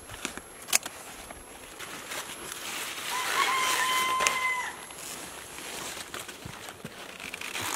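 A rooster crowing once, a single long held call in the middle, over the rustle of handled leaves, with a sharp click about a second in.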